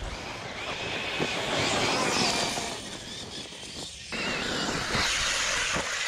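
ARRMA Talion XL RC car with a Hobbywing 2000 kV brushless motor running over dirt: a motor whine over tyre-on-dirt noise that drops away about three seconds in and comes back sharply about four seconds in, with a few knocks near the end as the car tumbles.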